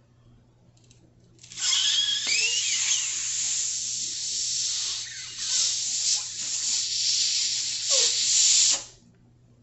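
A person blowing hard through a hole chipped in the end of a hard-boiled egg's shell, trying to force the egg out of its shell. A long rushing hiss of breath starts about a second and a half in, with a few squeaky whistling notes early on and a brief dip around the middle, and it stops abruptly near the end.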